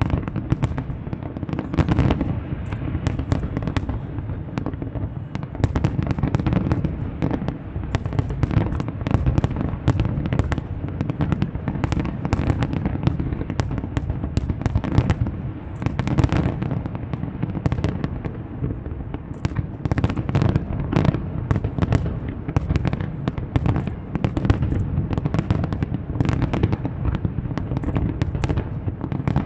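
Large aerial fireworks display: a dense, unbroken barrage of shell bursts and crackle, several sharp bangs a second over a steady low rumble.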